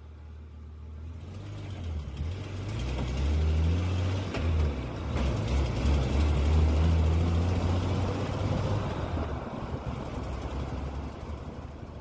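1987 Jeep Comanche's AMC 4.0-litre inline-six running as the truck drives along, with tyre and wind noise. It grows louder over the first few seconds, then eases off toward the end.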